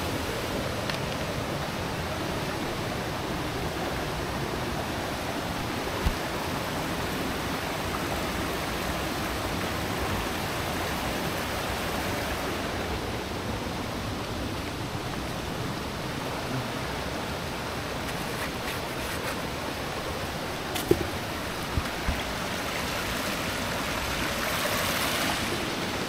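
Steady rush of a waterfall and its stream, running high with rainy-season water, broken by a few brief knocks.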